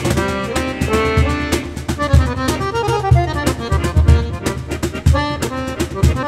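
Piano accordion playing a melody of changing notes over a hand-played cajón, whose deep bass thumps and sharper slaps keep the beat.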